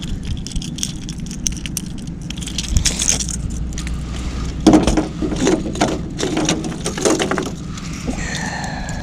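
Metal fishing tackle clinking and rattling as a glide bait is handled, with a cluster of sharper clicks about five seconds in, over a steady low rumble.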